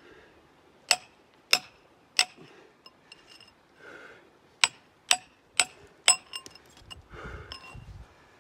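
A pointed steel bar struck against rock, giving sharp ringing metallic clinks: three strikes, a short pause, then four more, with a few lighter taps between.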